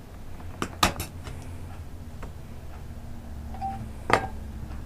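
Small hard clicks and taps from handling a mobile phone's plastic back cover and battery while taking its SIM card out. There is a quick cluster about a second in and one sharper click near the end, over a low steady hum.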